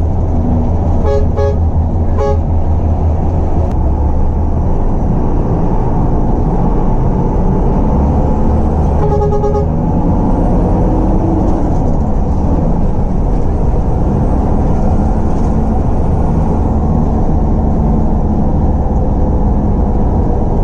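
Jaya Utama Indo bus's multi-tone horn: three short blasts in quick succession about a second in, then one longer blast around nine seconds in, each sounding several notes together. A loud steady low rumble runs underneath.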